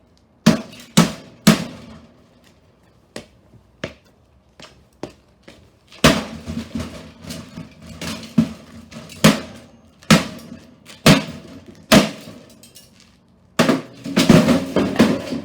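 Toaster oven being beaten: a string of hard blows on its sheet-metal body, each ringing briefly, about a second apart, with a quicker rattling flurry of hits near the end.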